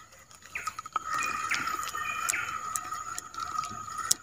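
Spinning reel being cranked to take up line after a cast, with irregular light clicks from the reel.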